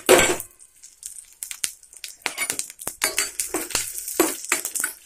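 A metal spoon stirring dry coriander seeds and dried red chillies in a stainless-steel kadai, with scattered clinks and scrapes against the pan. A sharp clink comes right at the start.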